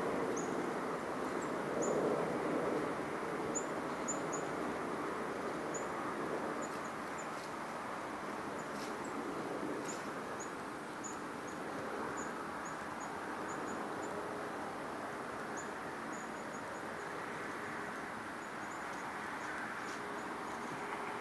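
Steady outdoor background rush with faint, short, high bird chirps scattered throughout; the rush swells briefly about two seconds in.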